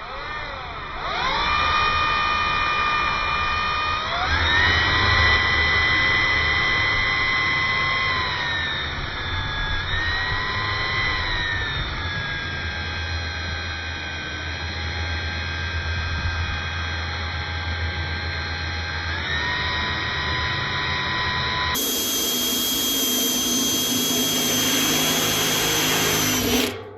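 Cordless DeWalt 20 V drill driving a titanium-coated high-speed-steel step drill bit through a hole: a steady motor whine whose pitch rises and falls several times as the trigger and cutting load change, cutting off suddenly near the end.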